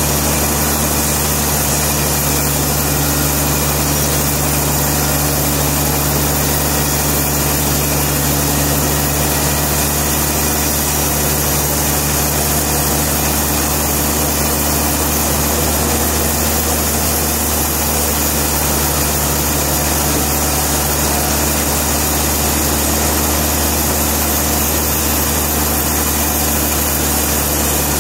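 Sawmill engine running steadily, a constant even drone with no change in pitch or loudness.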